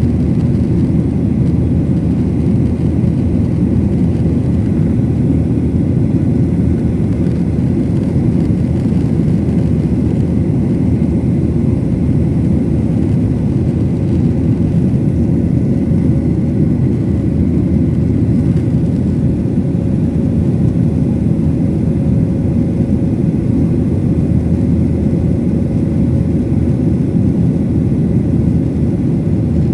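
Lion Air airliner's engines and airflow making a steady, loud low rumble with a faint steady whine above it, unchanging throughout.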